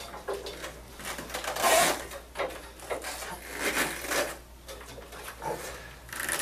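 Several short bursts of rubbing and rustling, the loudest a little under two seconds in, as the gait belt and leg-brace fittings at the hip are handled.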